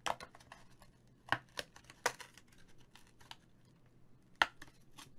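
Plastic candy packaging being handled and torn open by hand: a string of short, sharp crinkles and rustles, the loudest right at the start and a few more over the next four seconds.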